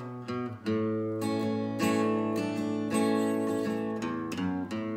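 Jumbo-body acoustic guitar strumming slow chords, each left to ring, with a new strum about every second.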